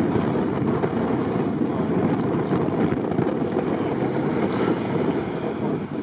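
Steady rushing of blizzard wind on the microphone, with a Mercedes G-Class off-roader's engine driving through deep snow mixed in beneath it.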